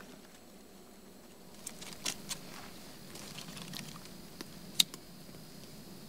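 Twigs and tinder being handled and laid into a small stone fire pit to build a campfire: faint rustling and light ticks, with one sharp click about five seconds in.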